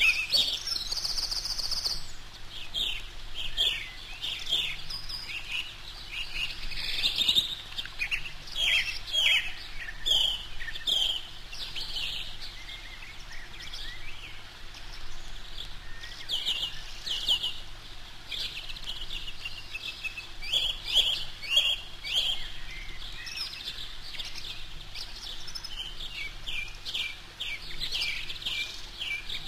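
Eurasian coot chicks peeping in the nest: clusters of short, high, downward-sliding calls repeated over and over with brief pauses, the begging calls of downy chicks beside the parent.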